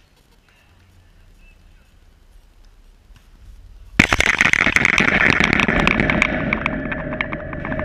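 A sudden loud bang about four seconds in as something strikes the wire-mesh fence the camera is clamped to, jolting the camera. The fence and camera mount then keep rattling and ringing loudly, with rapid clicks.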